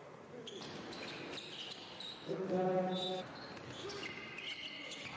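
Basketball game sounds on an indoor hardwood court: the ball bouncing and short high sneaker squeaks. About halfway in, a held voice-like call for about a second is the loudest sound.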